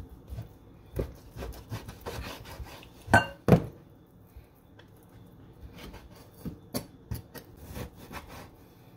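Kitchen utensils and dishware being handled: scattered knocks and scrapes, with two loud clanks a little after three seconds in, the first ringing briefly.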